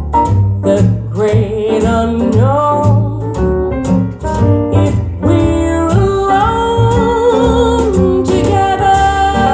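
Jazz recording played through a hi-fi bookshelf loudspeaker and picked up by a microphone in the room: a melody line with vibrato over a steady bass part.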